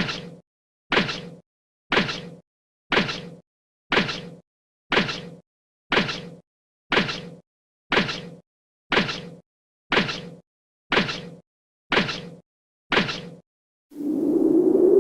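A short, sharp anime hit sound effect from Dragon Ball, a whack-like strike that dies away quickly, played fourteen times at one per second. Near the end a different effect takes over: a steady low hum.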